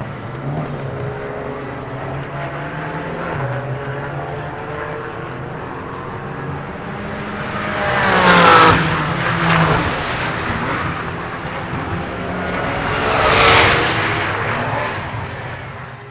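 Race cars running on the circuit: a steady drone of engines, with two cars passing close, one about halfway through and another about five seconds later. Each swells to a peak and drops in pitch as it goes by.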